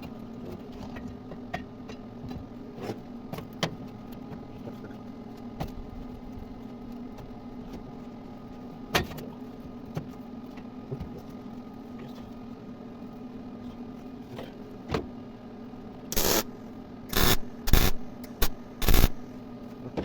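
Metalworking in a welding shop: a steady electrical hum with scattered clicks and knocks of metal being handled. Near the end come four or five short, loud bursts of noise.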